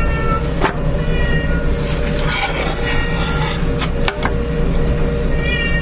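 A domestic cat meowing repeatedly, about four short calls a second or so apart, over a steady machine hum, with a couple of sharp clicks.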